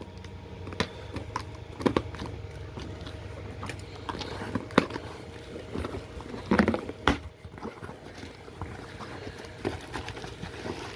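Packaging being handled and opened: irregular crinkling, taps and clicks, with a louder burst of handling about two thirds of the way through.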